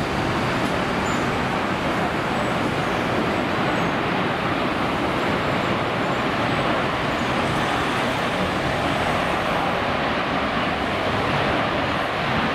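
Airbus A380-861's Engine Alliance GP7200 jet engines as the airliner rolls out along the runway after landing: a steady, even jet noise with no breaks.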